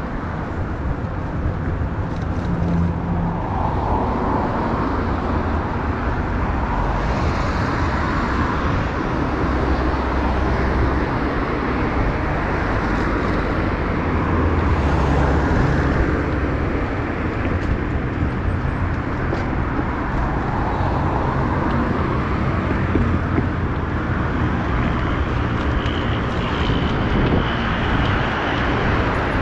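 Steady road traffic noise mixed with an uneven low rush of wind on a moving bicycle's microphone.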